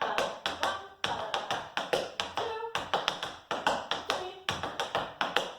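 Tap shoes' metal taps striking a hard floor in a run of tap time steps: sharp clicks in a quick, repeating rhythm.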